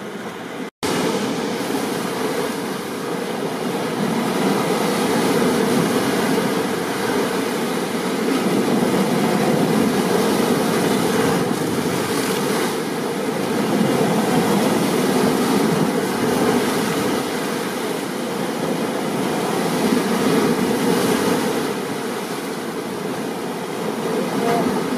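Steady rushing noise of storm surf and rain, swelling and easing every few seconds. It drops out completely for an instant about a second in, then comes back louder.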